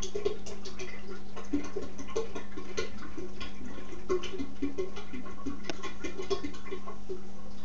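Sugar water poured from a plastic pitcher through a large funnel into a glass carboy, the liquid gurgling and splashing irregularly as it runs in. A steady low hum sits underneath.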